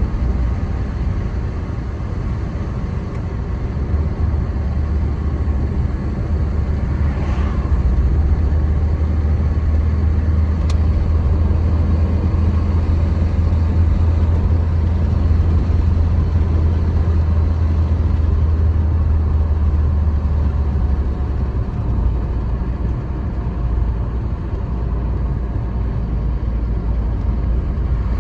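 Car driving at a steady pace: steady engine and road-tyre rumble.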